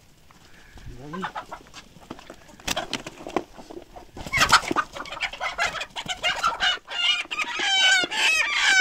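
Chickens squawking and clucking as they are chased and caught, getting louder and busier from about four seconds in, with quick wavering squawks near the end.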